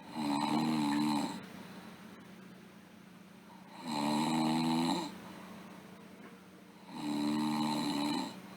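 A sleeping girl snoring: three snores about three seconds apart, each lasting a little over a second.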